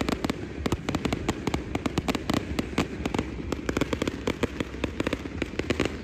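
Fireworks display: rapid crackling pops and bangs, several a second, going on without a break.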